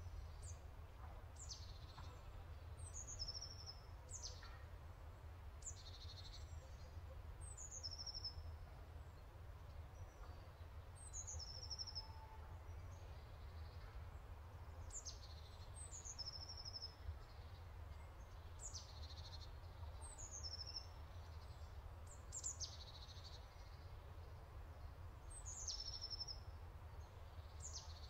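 Faint bird chirping: short, high-pitched calls that slide downward, repeating about every two seconds, over a steady low hum.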